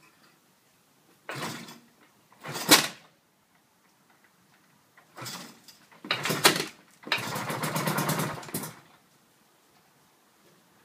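Race motorcycle being started: a series of short bursts of the engine turning over. The longest, about seven seconds in, runs for about a second and a half with rapid even pulses.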